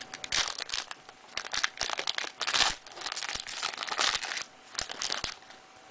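Wrapper of a Fleer Ultra basketball trading-card pack being torn open and crinkled, in irregular bursts of crackling that die away near the end.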